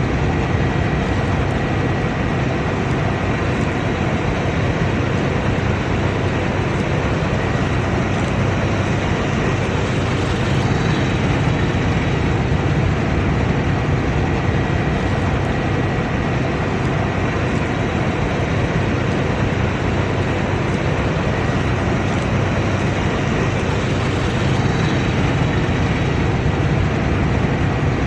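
Combine harvester running steadily under load, a constant engine drone with a thin high-pitched whine from the machinery.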